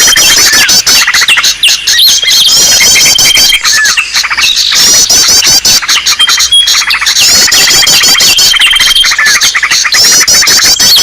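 Dense layered chatter of several small songbirds: rapid high twittering chirps, fast trills and a held high whistle, repeating as a loop about every seven seconds. This is a bird-trapping lure recording made to draw in small birds.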